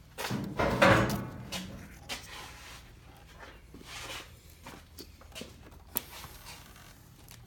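Hands working on parts and tools: a loud scraping rattle starting about a third of a second in and lasting over a second, then scattered light clicks and knocks.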